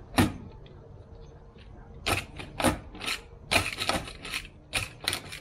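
Hand tool scraping burrs off freshly cut holes in the vehicle's steel body panel: a sharp click just after the start, then about half a dozen short scraping strokes over the last three seconds.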